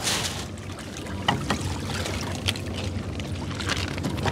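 A gill net being hauled by hand into a small boat, with water splashing and dripping off the net and a few light knocks, over a steady low hum.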